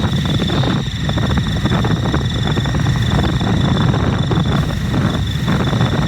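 Steady low rumble of road traffic, with a thin high-pitched whine held throughout.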